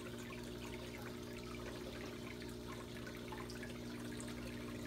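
Saltwater aquarium equipment running: a steady low hum from the pumps under a constant trickle of circulating water with small drips and pops.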